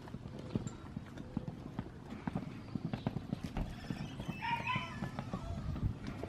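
Rolling suitcase wheels clattering over a brick-paver walkway: a quick, uneven run of small clacks and knocks.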